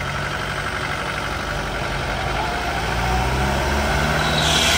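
Vehicle engine running, its pitch rising a little after the middle as a pickup tows a stuck Tempo Traveller van by rope. A loud hiss comes in near the end.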